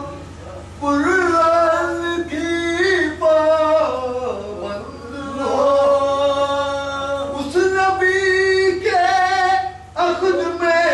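A man singing a salaam, an Urdu devotional elegy, in long held notes that bend and slide, phrase after phrase with short breaks for breath.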